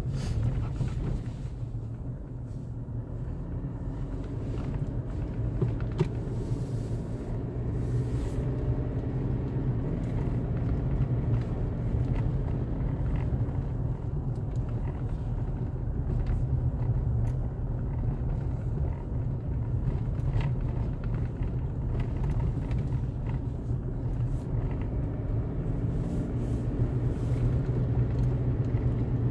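Vehicle engine running steadily with road rumble while driving.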